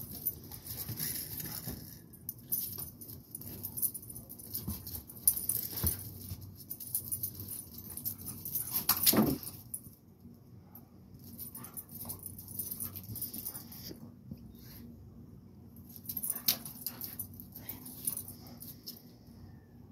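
Two dogs, a blue pit bull and a black-and-tan dog, sparring at close quarters: irregular dog vocal sounds mixed with scattered clicks, loudest in one outburst about nine seconds in.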